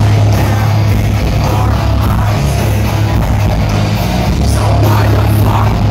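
Loud live heavy metal band performance with singing, heard from within the crowd.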